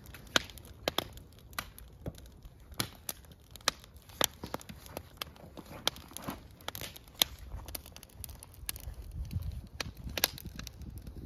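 Wood campfire crackling in a metal fire pit, with irregular sharp pops and snaps about every half second.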